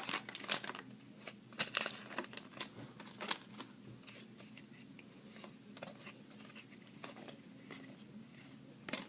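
A foil trading-card pack wrapper crinkling and cards being handled, with a quick run of crackles and clicks over the first few seconds, then only a few faint clicks.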